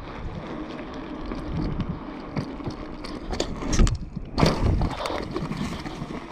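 Mountain bike rolling fast on asphalt: tyre rumble and rattle with wind buffeting the camera microphone, and a couple of loud thumps from bumps about four seconds in.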